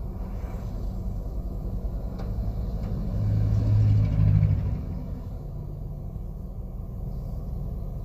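Low, steady rumble that swells louder for about a second and a half around three to four and a half seconds in.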